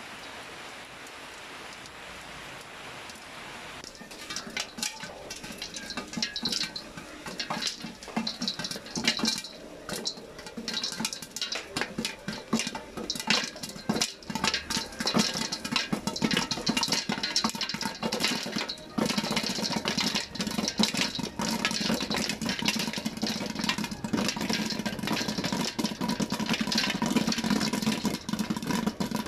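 Popcorn kernels popping in hot oil inside a covered aluminium pot. A steady sizzle at first, then scattered pops start about four seconds in and build into dense, continuous popping.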